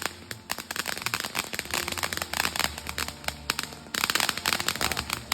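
Fireworks crackling: a rapid, irregular stream of sharp small pops, getting louder about four seconds in.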